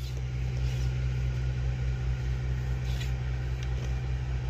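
A small engine running steadily with a low, even hum. There is a brief crackle about three seconds in.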